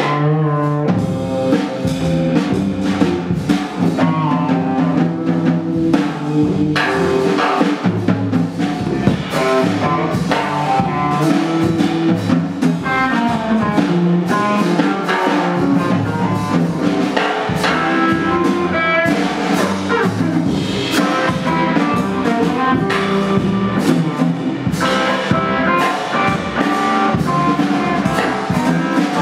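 Instrumental music with drums, fast notes over a busy beat.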